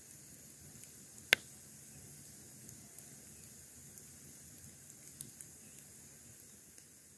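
Faint steady background noise with one sharp, loud click a little over a second in and a few fainter ticks scattered through it.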